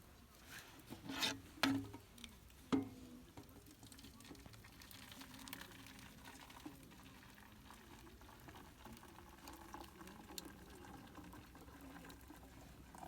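Sukiyaki simmering and sizzling in a pan, with a few sharp utensil knocks in the first three seconds.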